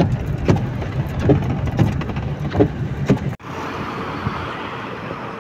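Car cabin road noise while driving on a wet road in light rain: a steady low rumble broken by a few short knocks. About three and a half seconds in it cuts off abruptly and gives way to a quieter, even hiss with a faint steady hum.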